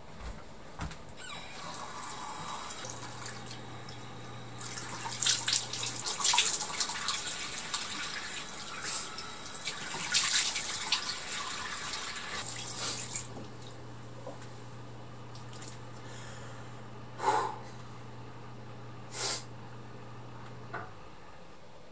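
Bathroom sink tap running, with water splashed onto the face by hand in several splashes, from about four seconds in to about thirteen. Afterwards a low steady hum remains, with two short sounds near the end.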